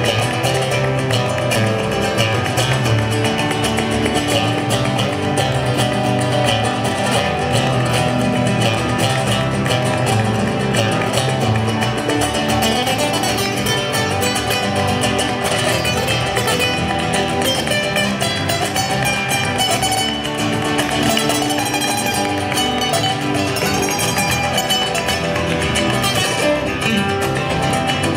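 Two acoustic guitars playing a Latin-style tune together, one fed through a small amplifier, without a break.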